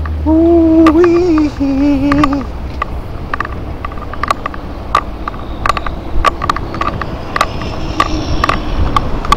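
Riding noise of an e-bike on a concrete trail: a steady rush with sharp rattling clicks scattered throughout. In the first two seconds a wavering pitched tone is held twice, with a short break between.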